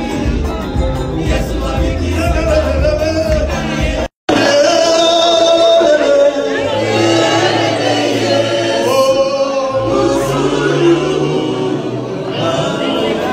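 Music with singing; the sound drops out for a moment about four seconds in, then the singing carries on.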